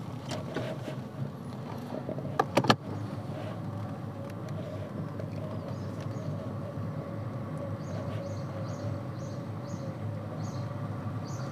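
Small Renault car's engine running steadily at low speed, heard from inside the cabin, with a couple of sharp clicks about two and a half seconds in.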